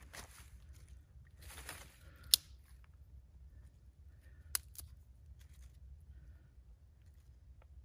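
Soft rustling as dryer lint is pulled from a plastic bag and pushed in among kindling sticks, with two sharp clicks about two seconds apart.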